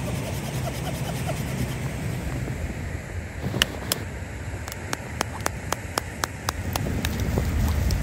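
Snowstorm wind rumbling steadily on the microphone. In the middle there is a run of about ten sharp clicks, several of them about four a second.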